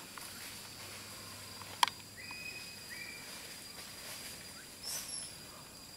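Tropical forest ambience: a steady high insect drone, with a single sharp click just before two seconds in, two short whistled notes right after it, and a brief high call about five seconds in.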